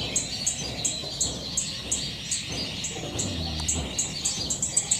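Birds chirping: a short, high chirp repeating evenly about three times a second, with other bird calls behind it.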